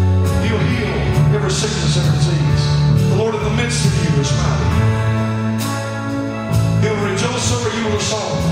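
Live church praise-band music: a drum kit with repeated cymbal hits over sustained bass notes and held chords.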